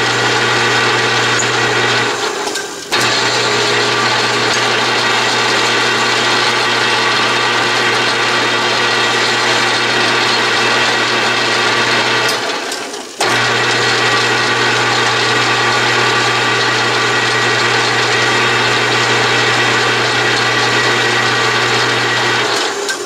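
Atlas/Craftsman 12-inch lathe running under power while its threading tool takes a cutting pass on a steel thread, a steady machine hum and whine. The sound cuts out briefly twice, about 2 and 12.5 seconds in, as the motor is stopped and restarted, and dies away just before the end.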